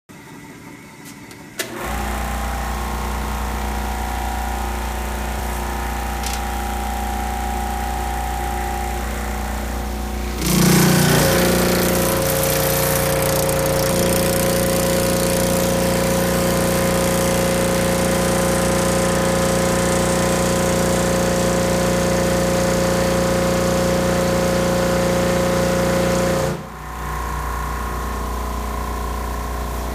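Lennox Metlmaster reciprocating sheet-metal machine starts about two seconds in and runs steadily. From about ten seconds in it grows louder, with a steady ringing tone, as 14 gauge cold rolled steel is fed through its tipping die to thin a bend line. A few seconds before the end it drops back to its plain running hum.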